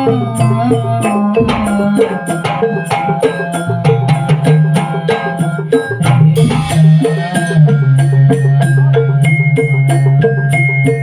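A patrol music ensemble rehearsing: a fast, even beat of sharp wood-block-like strikes and drums over held low pitched notes that change pitch every second or two.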